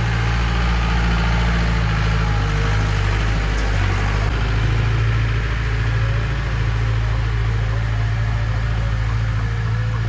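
Jeep engine idling, an even deep drone that holds steady throughout.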